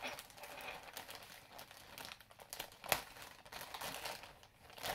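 Plastic packaging crinkling and rustling as hands work a model horse out of its plastic bag, with one sharp click about three seconds in.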